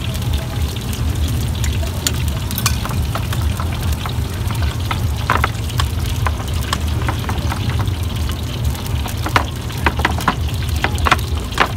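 A pestle grinding peanut sauce on a plate for ketoprak, rubbing and scraping against the plate, with irregular knocks and clicks that come more often near the end. A steady low hum sits underneath.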